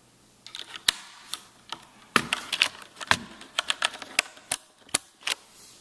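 Irregular sharp plastic clicks and clacks from a Rosewill RK-9000BL mechanical keyboard with Cherry MX Black switches as its G keycap is worked off.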